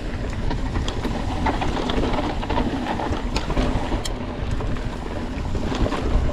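Wind rushing over the microphone of a mountain bike ridden at race speed, a steady low rumble with scattered clicks and rattles from the bike.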